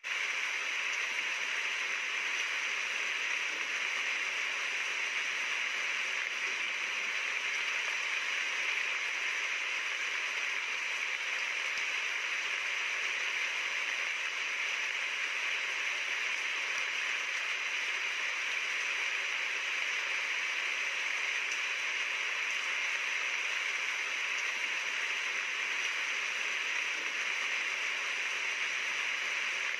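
Steady rain, an even hiss with no separate drops or thunder standing out.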